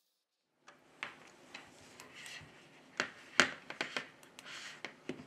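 Hands handling a smartphone on a hard tabletop: a string of light clicks and taps with soft rubbing between them, starting under a second in, with one sharper click about three and a half seconds in.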